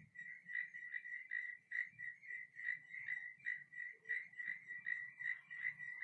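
A night-calling animal repeating a high chirp steadily, about four a second, always on the same pitch.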